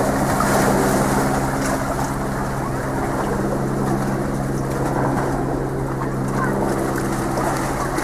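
A motor running steadily at constant speed: an even, low drone with a fixed pitch.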